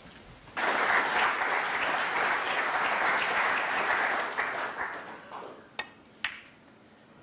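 Audience applause that breaks out about half a second in and dies away after about five seconds. Near the end come two sharp clicks of snooker balls being struck.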